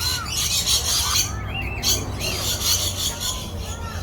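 A flock of small aviary birds chattering and squawking, with many short up-and-down chirps overlapping and harsh scratchy calls coming in waves.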